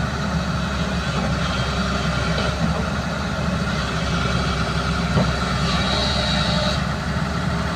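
Hyundai crawler excavator's diesel engine running steadily while its bucket is pressed against a tree trunk, with a short high whine about six seconds in.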